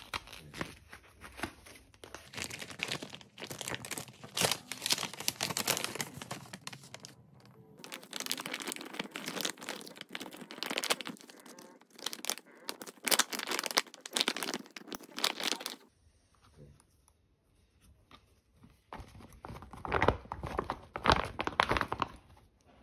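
IKEA RENSARE plastic mesh bag being unrolled, unwrapped and handled, crinkling and rustling. The crinkling is dense for most of the first two-thirds, drops away for a few seconds, then comes back in a burst near the end as the bag is opened out by its handles.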